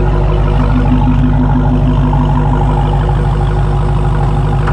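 Supercharged 6.2-litre HEMI V8 of a 2018 Dodge Charger SRT Hellcat idling steadily, with an even low throb from the exhaust.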